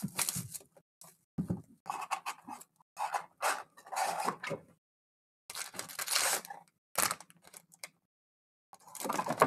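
A cardboard trading-card hobby box being opened and its foil card packs pulled out and stacked, heard as a run of short handling noises separated by brief silences.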